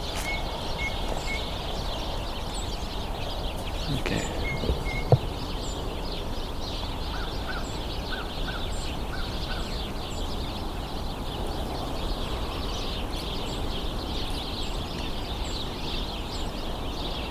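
A large flock of house sparrows chattering continuously from cover, a dense overlapping mass of chirps, with a few other short bird notes over it. A single sharp click about five seconds in.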